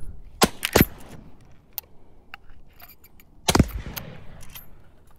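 Lever-action .30-30 rifle: two sharp metallic clacks in quick succession under a second in, like the lever being worked, then a single loud shot about three and a half seconds in that rings out with an echo.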